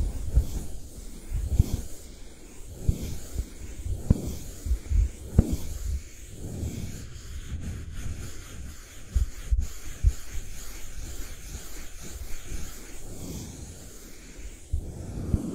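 Close-miked ASMR handling sounds: a small brush worked over a compact-like object in the hands, giving soft, irregular low thumps with light rubbing and a few sharper clicks.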